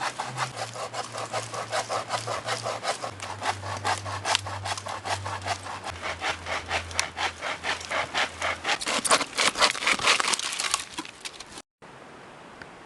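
Hand saw cutting dry firewood with quick, even back-and-forth strokes, about four a second, which speed up and get louder shortly before they stop near the end. A quieter steady rushing noise follows.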